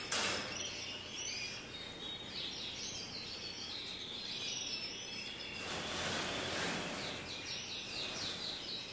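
Domestic canaries singing in quick high trills over a steady background hiss, with a stronger rush of noise about six seconds in.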